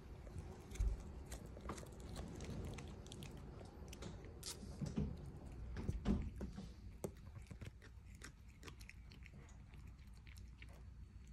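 A lynx point Siamese cat biting and chewing cat grass: a run of small crisp crunches, busiest from about four to about seven seconds in. There are low thumps about a second in and again about six seconds in.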